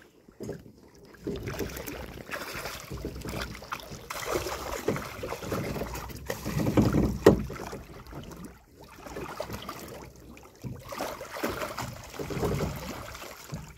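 Water splashing and dripping as a wet hooped fyke-net trap is hauled up out of the water and pulled over the side of a small boat, with irregular rustling and knocks from the net and hoops. It is loudest about seven seconds in.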